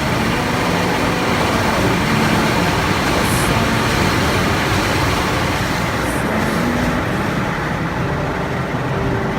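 Car wash running: a steady, loud rush of spraying water and machinery.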